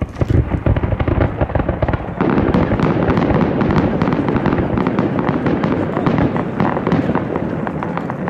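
Ground firework fountain lighting off suddenly and spraying sparks with a dense, continuous crackle that grows thicker and louder about two seconds in.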